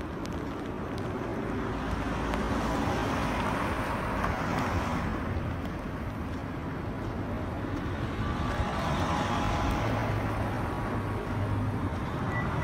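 Road traffic: cars driving past on a street, their tyre and engine noise swelling and fading twice as they pass.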